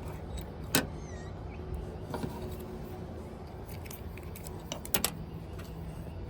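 A few sharp clicks and small clinks from handling the parts of an electric scooter's charging port during its replacement, over a steady low hum. The loudest click comes about three quarters of a second in, with a quick double click near five seconds.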